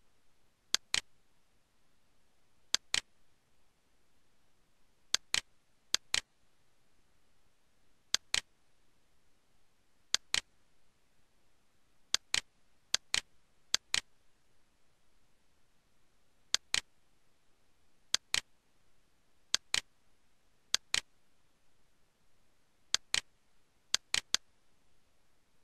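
Computer mouse button clicking, each click a quick double tick, about fifteen of them at irregular intervals over a faint steady hiss.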